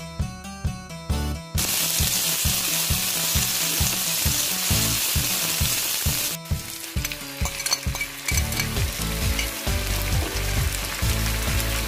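Sliced onions and sweet peppers sizzling in oil in a frying pan, with pieces of tinned mackerel added later. The hiss sets in about a second and a half in and breaks off briefly a little past halfway. Background music with a steady beat plays throughout.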